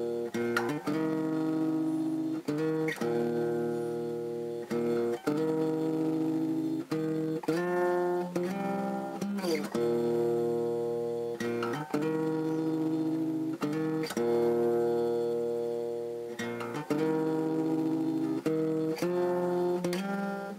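Background music: acoustic guitar strumming chords, each one ringing on for a second or two before the next.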